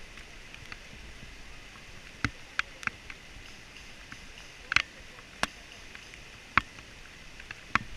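Scattered sharp clicks and snaps, about seven of them at uneven spacing, the loudest near the middle, over a steady faint outdoor hiss.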